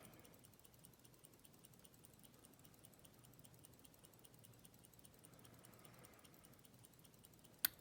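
Near silence: faint sounds of a lock pick and tension wrench working the pins of a Master Loto padlock, over a faint even ticking, with one sharp click near the end.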